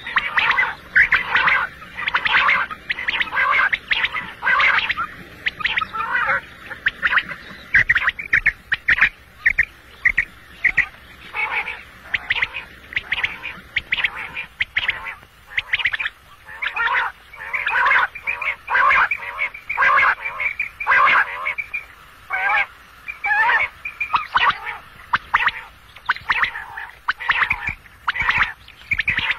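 Common quail calling: a long run of short, rapid calls repeated several times a second, with brief pauses between runs.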